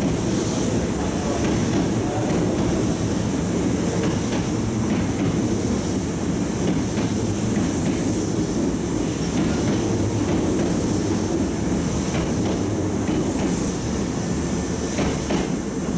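Hankyu electric train running along the platform: a steady rumble of wheels on rail, with occasional clicks as the wheels cross rail joints.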